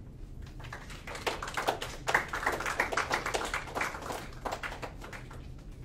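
A small group of people clapping. The claps build up about a second in, are dense for a few seconds, then thin out and die away near the end.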